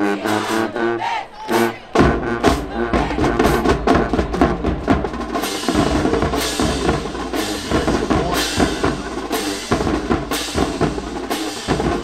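Music with a drum beat: pitched notes over a sparse beat at first, then a heavy bass and steady drums come in about two seconds in.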